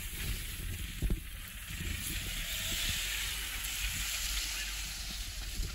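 Suzuki Jimny crawling over dry sand and scrub: its 1.5-litre four-cylinder engine runs low under a steady hiss of tyres and brush, with wind rumbling on the microphone.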